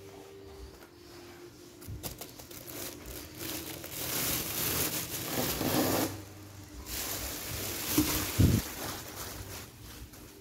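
Clear plastic wrapping crinkling and rustling as it is pulled off a small water dispenser in its cardboard box, loudest in the middle, with two thumps a little later.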